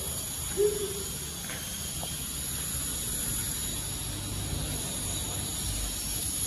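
Steady hiss of background noise with a low rumble underneath, and one short pitched sound about half a second in.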